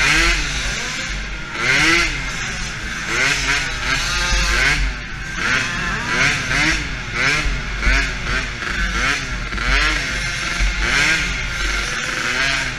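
DRR 50 youth quad's small 50cc engine revving up and down over and over, roughly once a second, as the throttle is opened and closed around the track, with a steady hiss and low rumble behind it.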